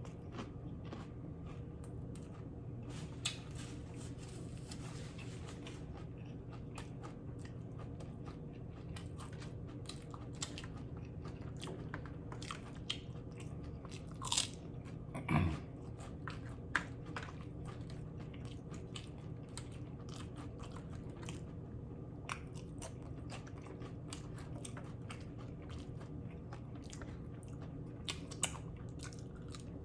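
Close-miked chewing and crunching of loaded nachos, with scattered sharp mouth clicks and crunches, louder about halfway through, over a steady low hum.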